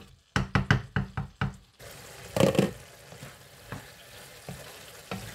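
Wooden spatula knocking against a frying pan about eight times in quick succession while stirring green beans and potatoes. Then a steady sizzle of the vegetables simmering in their spiced water, with a louder scrape of the spatula and lighter stirring taps.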